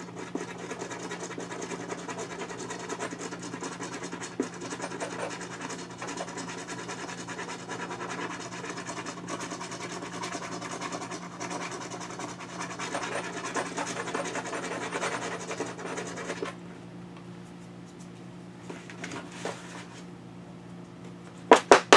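Large knife blade scraping the coating off a scratch-off game card, a steady scratching that stops about sixteen seconds in. Two sharp clicks come near the end.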